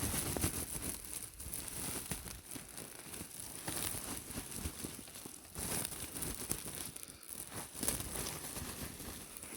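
A bag of dry manure rustling and crinkling in uneven bursts as the manure is shaken and thrown out of it onto soil.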